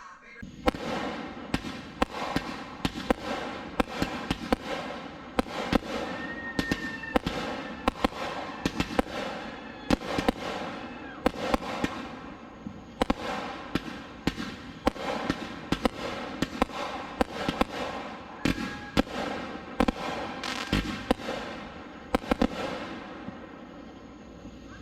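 200-gram consumer fireworks cakes firing in rapid succession: a dense run of sharp bangs from shells breaking overhead, often one or two a second, thinning out near the end.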